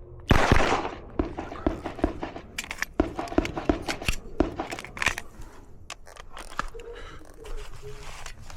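A single gunshot just after the start, ringing out with a long echo. It is followed by a run of quieter, irregular sharp clicks and knocks.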